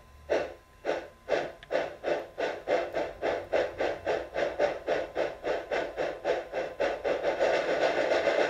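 Sound decoder of a Bachmann diecast NYC Hudson model steam locomotive playing steam exhaust chuffs, quickening from about two a second to a fast run that blurs together near the end as the throttle is turned up. The model is held back by fingers at its cowcatcher and has no power to push against them.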